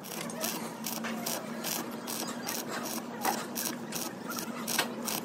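Stick welding on a steel truck chassis frame: the electrode arc crackles steadily, with a steady hum underneath.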